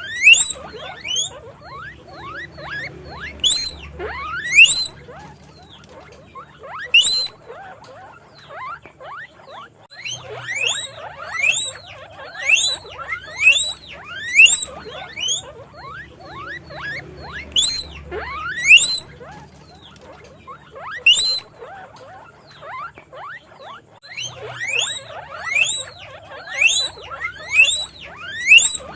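Guinea pig wheeking: loud, high, rising whistle-like squeaks repeated in quick runs, with short quieter pauses between the runs.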